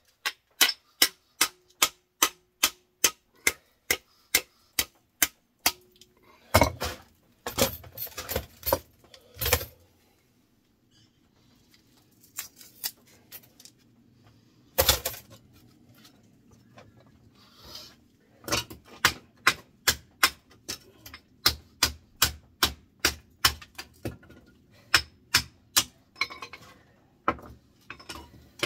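Hammer blows on metal, struck in steady runs of about three sharp knocks a second. A few heavier, irregular hits come after the first run, then a pause, a single loud blow, and a second steady run.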